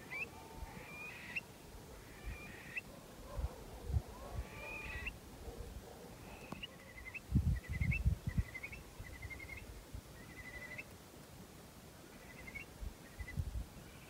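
Birds calling in the dark: short, hooked calls repeated about once a second, several of them given as quick trills. Low thumps on the microphone come and go, loudest about seven to eight seconds in.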